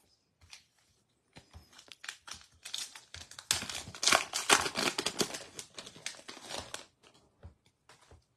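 The foil wrapper of a Topps Series 1 baseball card pack being torn open and crinkled by hand: a dense crackling that builds for a few seconds, is loudest in the middle, then dies away. A few light ticks follow near the end as the cards are drawn out of the wrapper.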